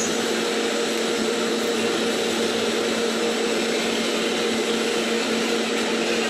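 Steady hum of commercial kitchen equipment with a constant hiss over it, unchanging throughout.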